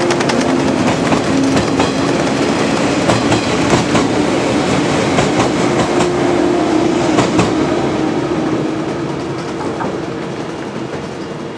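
Railway cars rolling past, with a clickety-clack of wheels over rail joints and a faint steady hum underneath; the sound eases off over the last few seconds as the train moves away.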